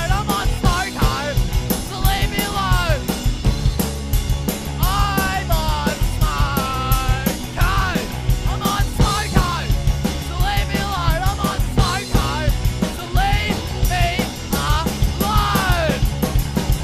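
Punk rock song playing, with a drum kit and a singing voice.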